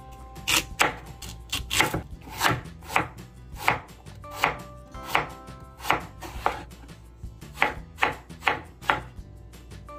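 Kitchen knife slicing through onion, Korean radish and apple and knocking on a wooden cutting board: irregular sharp chops, about two a second.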